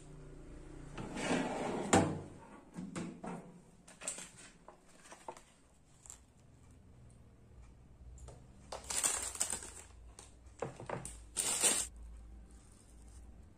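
Handling of aluminium foil food trays: rustling with a sharp knock about two seconds in, then a metal spoon scraping and crinkling in a foil tray, in two short bursts near the end.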